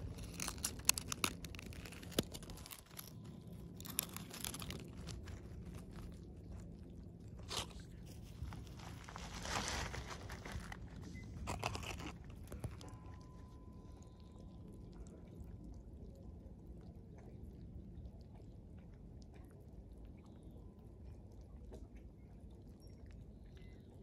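Pebbles crunching and scraping on a gravel shore: scattered crunches in the first half, the longest about a second near the middle, then only a low, steady background.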